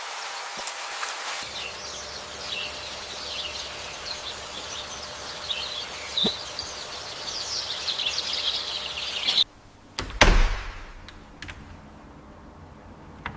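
Outdoor ambience of birds chirping over a steady hiss. It cuts off abruptly about nine seconds in, followed by a single heavy thud.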